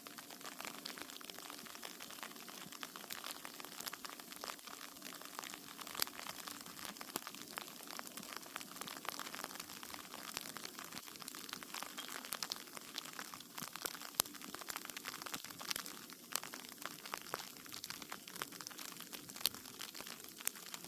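Sleet pellets falling steadily, a dense patter of tiny irregular ticks on the icy crust and surrounding surfaces, with a louder click now and then.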